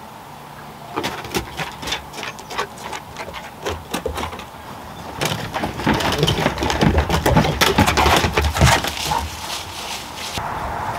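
Dogs' claws clicking and paws thumping on a wooden deck as several dogs scramble about, with the pet-door flap clattering as one pushes through; the clatter is busiest in the second half. A steady hiss takes over near the end.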